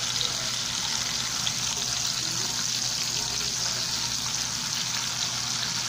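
Pork slices frying in oil in a pan: a steady sizzle with scattered small crackles.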